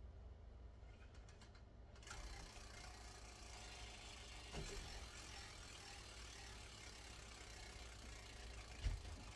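Faint steady low hum with a light hiss, broken by a few soft knocks; the loudest knock comes near the end.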